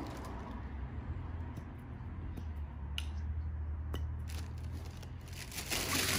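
Rummaging in a boat's carry bag: rustling and crinkling of the bag and its contents, with two sharp clicks about three and four seconds in as small hard plastic parts come out. The rustling grows busier near the end, over a low steady rumble.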